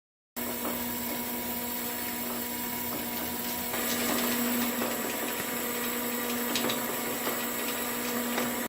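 Concrete 3D printer's machinery running: a steady hum with a constant whine over it. It starts abruptly, grows a little louder about halfway, and has a few faint clicks near the end.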